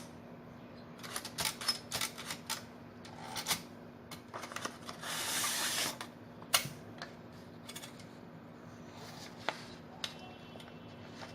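Olivetti Lettera 35i manual portable typewriter mechanism making scattered sharp clicks and clacks, not continuous typing, with a longer rasping sound about five seconds in.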